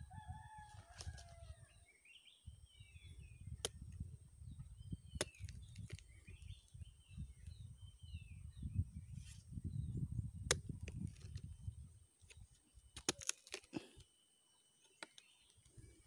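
Small birds chirping with short rising and falling notes over a low rumble on the microphone that fades out about twelve seconds in, with scattered sharp clicks. A short falling call comes at the very start, and a steady high whine runs throughout.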